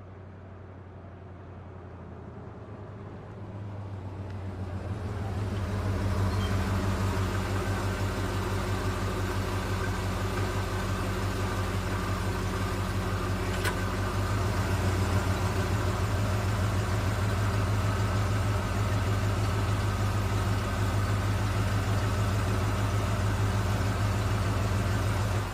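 Vehicle engine idling with a steady low hum, growing louder over the first few seconds and then holding even. There is a single sharp click about fourteen seconds in, and the sound stops abruptly at the end.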